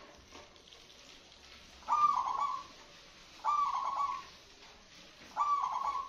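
Zebra dove (merbok) cooing loudly: three short coos, each a quick rise into a rolling, trilled note, about one and a half to two seconds apart.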